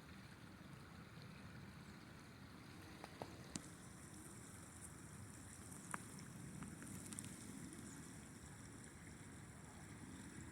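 Faint, steady rush of a flowing river, with a few sharp clicks in the middle.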